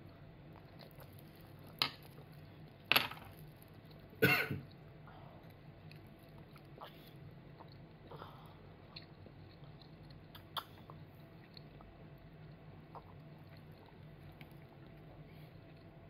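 A toddler at a meal: sharp clicks of a spoon against plastic dishes in the first few seconds, then a short cough about four seconds in. After that it is quiet while the child drinks from a plastic cup, with a faint tap now and then.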